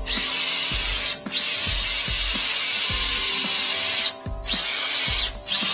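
Flex-shaft drain cleaner spinning its cable inside a drain pipe to scour out hardened epoxy. It runs in bursts: it stops briefly about a second in, runs on, then cuts out twice more near the end, with a short rising whine each time it restarts.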